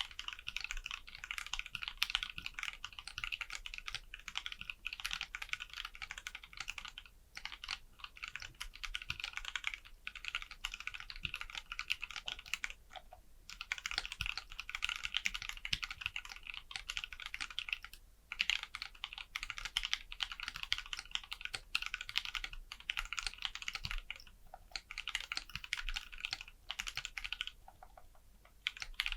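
Anne Pro 2 60% mechanical keyboard being typed on steadily in a typing test: rapid runs of key clicks broken by a few short pauses.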